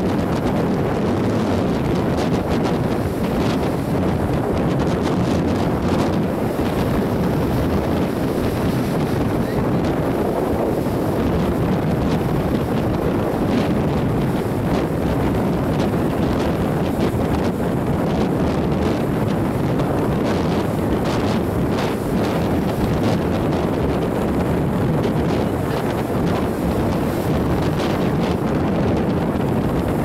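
Strong wind buffeting the microphone in a steady rush, with surf breaking on the shore underneath.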